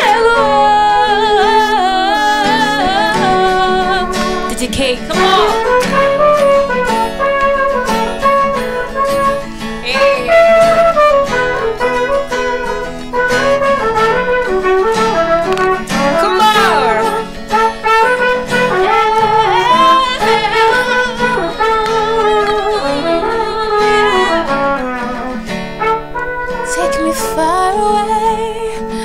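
Trumpet playing a melodic solo over acoustic guitar accompaniment, with wordless singing alongside it.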